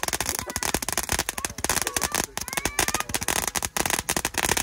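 Consumer ground firework spraying sparks and shooting red comets, with dense rapid crackling and pops throughout and a few faint rising whistles.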